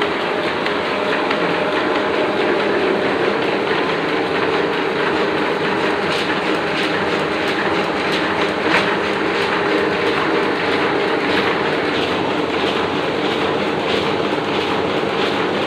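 Oliver offset printing press running steadily with a continuous mechanical hum. From about six seconds in, a regular clacking can be heard, roughly three beats every two seconds, as the press cycles.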